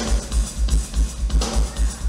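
Live band music led by a drum kit, the bass drum keeping a steady beat of about three thumps a second.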